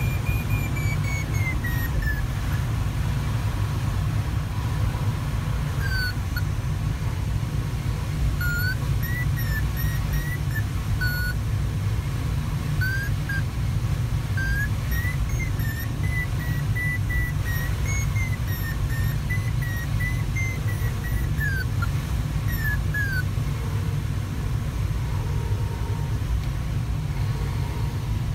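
Steady rush of airflow around the Sparrowhawk ultralight glider's cockpit, with an electronic variometer's tone wandering up and down in pitch. The tone is continuous at first, breaks into short chirps, then holds steadier, and stops near the end; its pitch follows the glider's rate of climb and sink.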